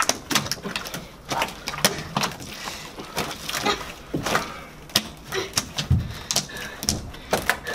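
A large mass of sticky slime being kneaded, lifted and pulled apart by hand: an irregular run of squelches, smacks and crackling pops as it stretches and peels off the floor.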